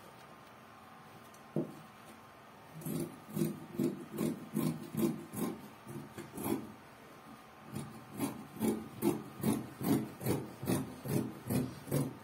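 Scissors cutting through Ankara cotton fabric: a steady run of snips, about two or three a second, with a pause of about a second midway. A single sharp knock comes shortly before the cutting starts.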